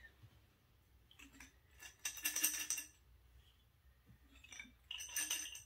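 Short cinnamon stick pieces dropped into a small glass bottle, clinking and rattling against the glass. A dense burst of clinks comes about two seconds in, and another near the end.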